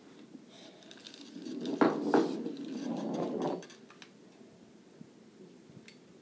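Closed-face spincast fishing reel being cranked to wind line onto its spool, with handling rustle and two sharp clicks about two seconds in, dying down to a few faint ticks after about three and a half seconds.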